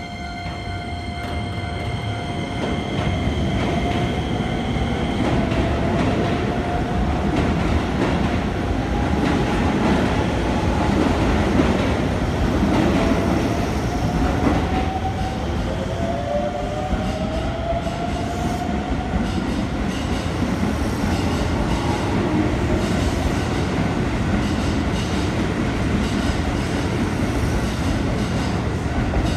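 Chiba New Town Railway 9800-series electric train pulling out of the station. The motor whine rises in pitch in several successive sweeps as it accelerates, over a loud rumble and clatter of wheels on the rails that builds over the first few seconds as the cars pass.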